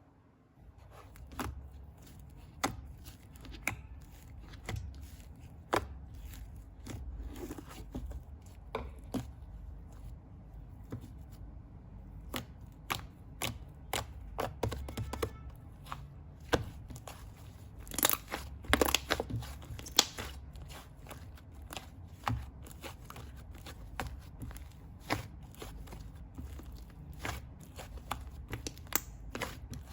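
Fluffy clay slime being squeezed and poked by hand, giving irregular soft pops and crackles, about one or two a second and bunched together about two-thirds of the way through.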